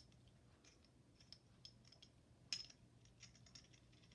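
Faint clicks and taps of small faucet adapter parts being handled and fitted together, with one sharper click about two and a half seconds in.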